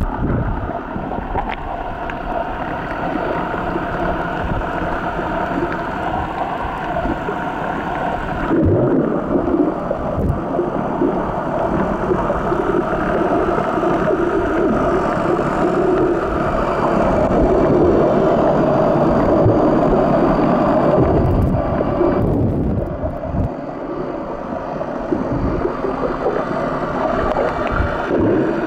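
Muffled underwater noise picked up by a submerged action camera: a dense, steady rumble of water, with a faint wavering whine in the first several seconds.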